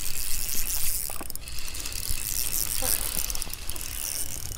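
Fishing reel being cranked to retrieve line, its gears giving a rapid mechanical clicking whir.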